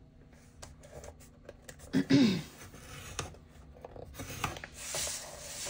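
A scoring stylus scraping along a groove of a paper scoring board as kraft cardstock is scored, with the card being handled and shifted on the board. A brief louder sound comes about two seconds in.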